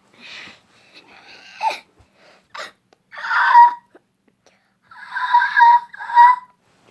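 A person making deliberately strange wheezing, squeaky vocal noises: a few short breathy sounds, then a loud raspy squeal about three seconds in and two more near the end.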